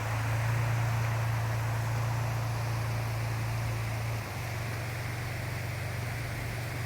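Steady rushing of river water with a low, steady rumble underneath, which drops a little in level about four seconds in.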